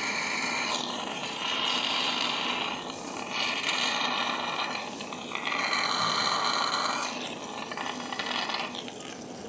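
Surgical suction tip running in the open abdomen, a hissing, slurping draw of air and fluid that swells and fades several times.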